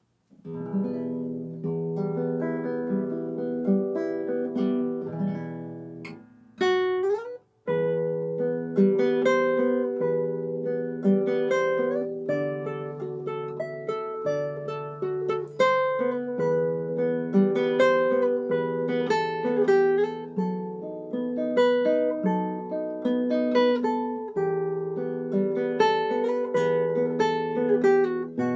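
Matsuoka M80 nylon-string classical guitar played fingerstyle: a melody of plucked notes over a bass line. About seven seconds in there is a short break with a sliding note, then the playing resumes.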